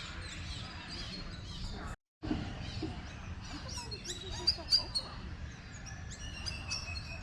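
Birds chirping and calling in many short, high notes over a steady low rumble, cut off by a moment of total silence about two seconds in.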